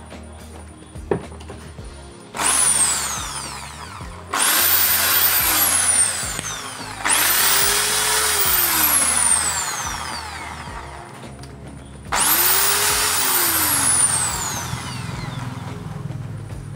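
Bosch electric drill run four times in short bursts. Each run starts abruptly at full speed and then winds down with a falling whine as the chuck coasts to a stop. This is a test run of the drill's motor, whose winding was found faulty.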